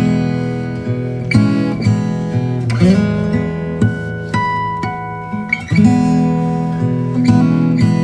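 Background music: an acoustic guitar strumming chords, a new chord every second or so, each left ringing.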